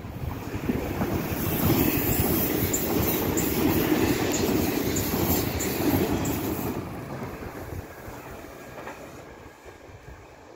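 A Bombardier Talent 2 electric multiple unit passing close by, its wheels running on the rails. The sound swells within the first second, stays loud for several seconds while the cars go past, and fades over the last few seconds as the train moves away.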